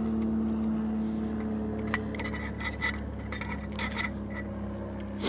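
Light metallic clinks and scrapes of an eating utensil against a stainless steel camp plate, a short run of them in the second half, over a steady low drone.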